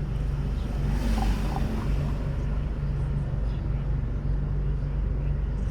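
A car driving in city traffic: a steady low engine and road rumble, with a brief swell of hiss about a second in.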